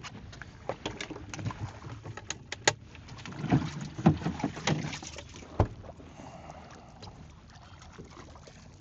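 Splashing and a string of knocks and clatter at the boat's side as a thrashing speckled trout is netted and lifted aboard, loudest about four to five and a half seconds in, then settling.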